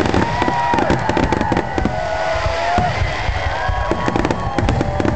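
Aerial fireworks going off in quick succession: a dense run of booms and crackling bursts, with gliding tones weaving over them.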